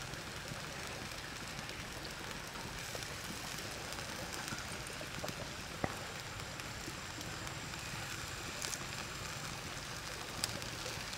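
Shrimp sizzling on a stone slab heated over a wood fire: a steady, rain-like hiss with a few sharp crackles.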